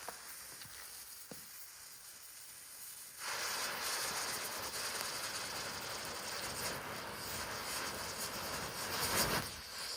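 Emoji ground spinner firework catching about three seconds in and giving off a loud, steady hiss as its charge burns.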